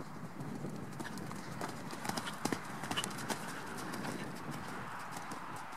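Ridden horse's hoofbeats on a sand arena surface, with a cluster of sharper, louder hits around two to three seconds in as the horse passes close.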